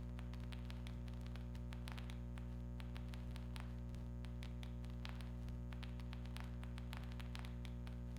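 A steady low electrical hum, with irregular sharp clicks scattered through it.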